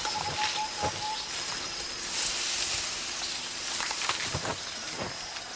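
Elephants feeding in rainforest vegetation: foliage rustling and a few sharp snaps of stems, over a steady high insect drone. A short even tone fades out about a second in.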